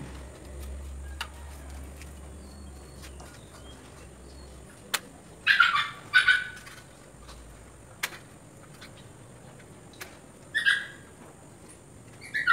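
A bird calling in short, loud bursts: two calls a little under halfway through, one more a couple of seconds later, and another starting near the end. A few sharp clicks fall in between.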